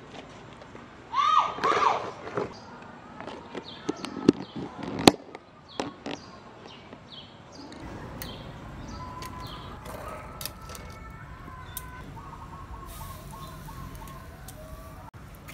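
A spatula working through vegetables in a plastic food box, with squeaks and clicks and a sharp snap about five seconds in as the box is handled and closed. From about eight seconds in comes outdoor background with birds chirping.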